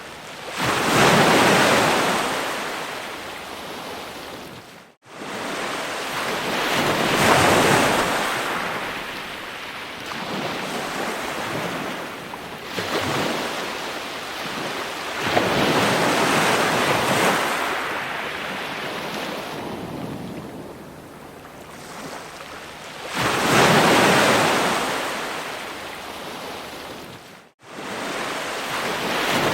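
Ocean waves breaking on a shore, each surge of surf swelling and washing back over several seconds. The sound cuts out abruptly for a moment twice.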